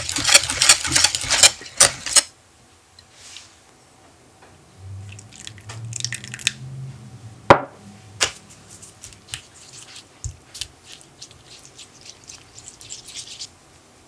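Cream cheese and lemon juice being mixed in a glass bowl: a quick run of wet, clicking strokes that stops about two seconds in. Midway comes a single sharp knock, the loudest sound. Then gelatine powder and hot water are stirred in a small glass bowl, with a long run of quick light clicks of the utensil against the glass.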